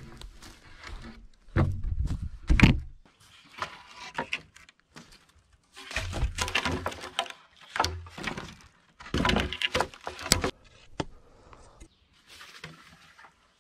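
Wooden logs and poles being set down and shifted on a log pile, giving dull wooden thuds and knocks with scraping and rustling between them. The heaviest thuds come about two seconds in and again around nine to ten seconds.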